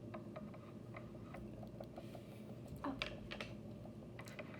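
Faint, scattered light clicks and taps of small plastic toy pieces and packaging being handled, with one slightly louder click about three seconds in.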